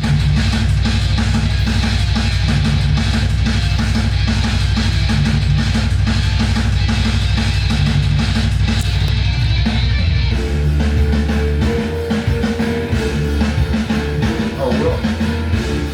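Heavy metal track with an electric guitar riff over a drum kit. It starts abruptly, and the arrangement changes about ten seconds in.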